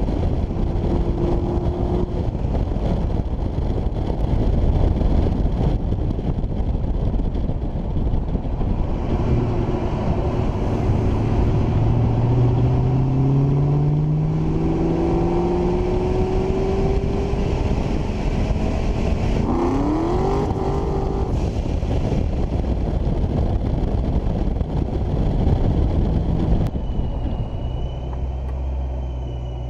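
Supercharged Ford Mustang GT's V8 engine and exhaust under way, mixed with heavy wind rush over an outside-mounted camera. The engine note rises steadily through an acceleration in the middle, then climbs sharply in a quick rev a little later. Near the end the car slows, the wind dies away and a low, steady engine note remains.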